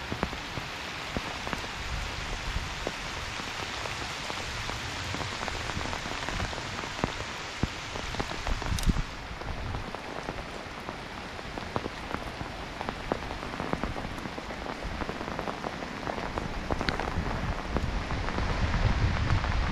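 Rain falling steadily, with many small drop impacts close to the microphone. Low wind rumble on the microphone builds near the end.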